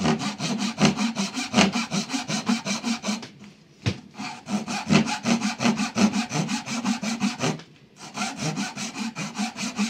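Cheap 250 mm German-made Gents saw cutting American hard maple in a test cut: quick, even back-and-forth strokes in three runs, with short pauses about three seconds in and again near eight seconds. Its teeth are very angular, and the owner finds the saw not a great cutter, with teeth he thinks need resetting.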